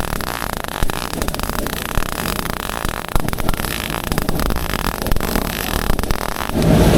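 Welding arc crackling and sizzling steadily, with irregular sharp pops. Near the end a louder, lower, steady sound takes over.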